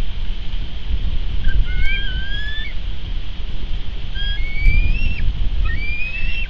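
Bald eagle calls: three high, thin whistled calls, each about a second long and gliding slightly upward, over wind rumbling on the microphone.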